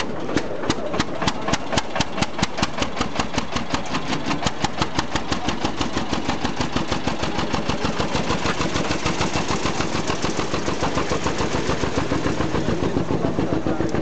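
Lok 33's locomotive engine, just hand-cranked into life, firing in distinct beats that start slow and quicken over the first several seconds, then settle into a steady, even idle.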